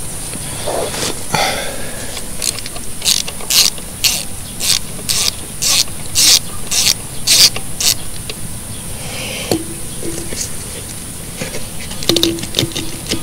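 Socket ratchet clicking in a steady run of strokes, about two a second, as it backs the blown-out grease (Zerk) fitting out of a mini excavator's track tensioner; a quicker cluster of clicks comes near the end.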